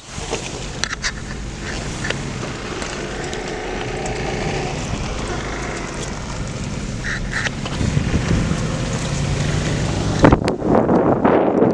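Car driving on a wet road: steady engine and tyre noise with a low hum, and wind. A sharp knock about ten seconds in, after which wind rushes louder across the microphone.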